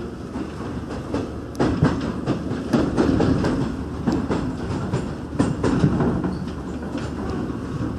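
Rheostat-controlled Seoul Line 1 electric commuter train running, heard from inside the car: a steady rumble with irregular sharp clacks as the wheels pass over the track.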